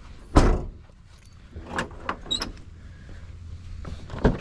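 Hand tools being picked up and set down: a loud knock about half a second in, then softer clicks and a brief metallic jingle, and another knock near the end.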